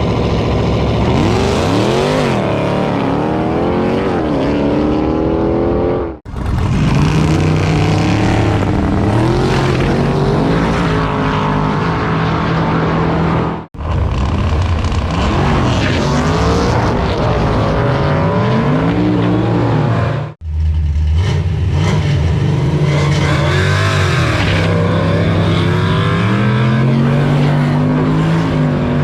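Drag-race cars running at full throttle, engine pitch rising and then dropping again and again as they accelerate. Four separate stretches joined by three abrupt breaks.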